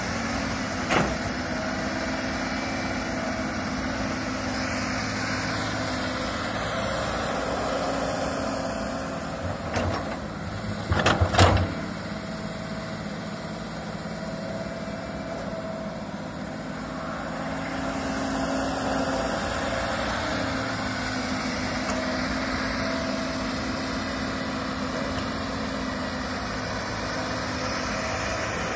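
Komatsu hydraulic excavator's diesel engine running steadily while it digs and swings. A short sharp knock comes about a second in, and a cluster of louder knocks comes around ten to eleven seconds in.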